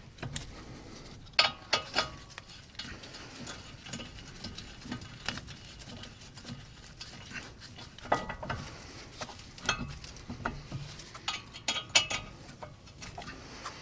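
Irregular metallic clicks and clinks of a 7 mm hex key working the guide pin bolts of a VW Tiguan front brake caliper, with the caliper knocking as it is handled.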